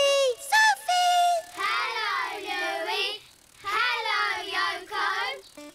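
A high cartoon character's voice singing without words, its pitch wavering. A few short notes come first, then two long warbling phrases from about two seconds in, with a short gap between them.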